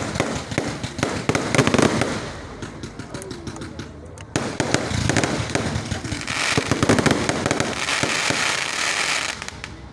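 Fireworks going off in dense, rapid crackling bangs, in two long volleys: the second starts suddenly about four seconds in and fades near the end.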